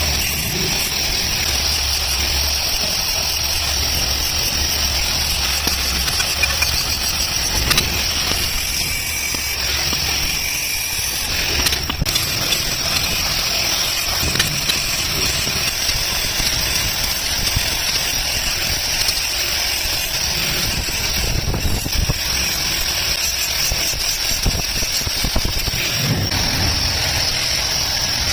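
A workshop machine running steadily: a continuous high hiss over a low hum, with scattered light clicks.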